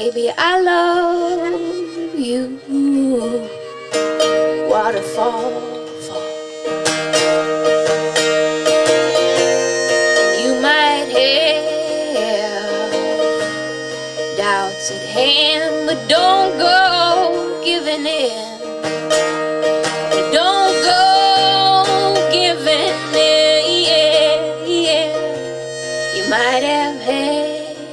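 Live acoustic band playing an instrumental break: plucked strings and a steady bass under held chords, with a lead line of sliding, wavering notes.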